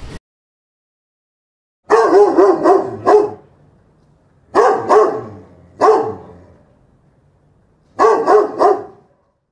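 A dog barking in four bouts of short barks, the first starting about two seconds in and the last ending near the end.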